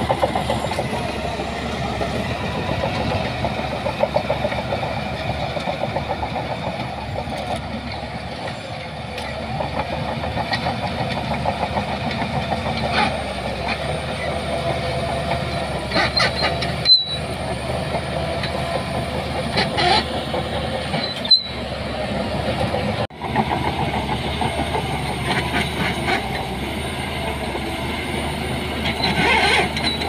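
Shantui DH17 crawler bulldozer running as it pushes sand, its diesel engine steady under the rattling clank and occasional squeal of its steel tracks.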